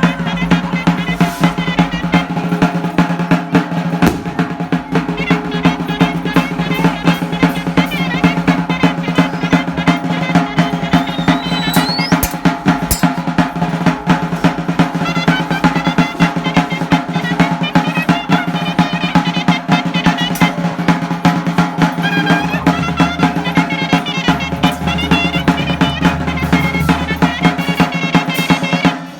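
Chirimía band playing: fast, continuous drumming with a sustained low tone and a wavering melody line above it, breaking off at the end.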